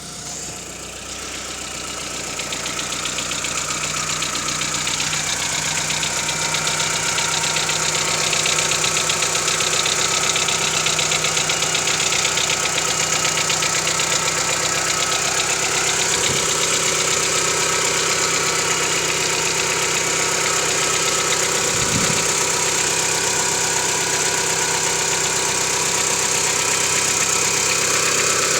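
Mitsubishi 4G92 four-cylinder engine idling just after a cold start with a rapid knocking, getting louder over the first several seconds. It is a cold-start knock that goes away once the engine warms, its cause unknown to the owner.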